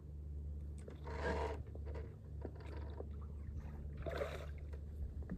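Bow-mounted electric trolling motor running with a steady low hum, which drops away about five seconds in. Two short rushes of hiss come over it, about one and four seconds in.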